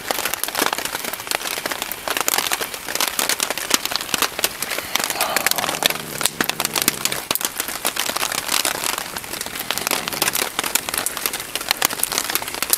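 Heavy rain drumming on a plastic tarp shelter, mixed with the snapping and crackling of a wood campfire.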